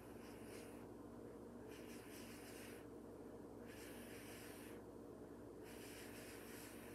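A person blowing on wet acrylic pouring paint in a series of faint, long breaths, each about a second long, with short pauses between.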